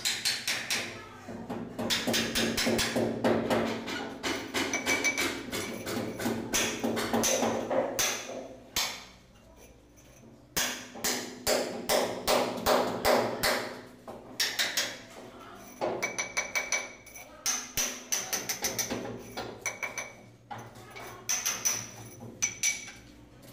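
Hammer driving a chisel into a masonry wall to chip out a pipe groove between two machine-cut lines. The blows come in quick runs with a slight metallic ring and stop briefly twice.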